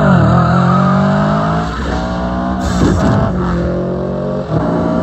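Car engine revving sound effect, accelerating hard, with its pitch climbing and then dropping at each gear change, about two seconds in and again near the end.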